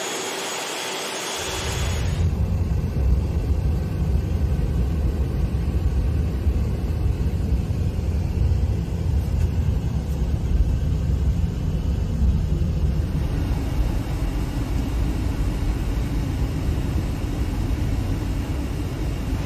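Steady low rumble of a moving car, heard from inside the cabin, following about two seconds of steady hiss with a thin constant whine near a parked jet airliner.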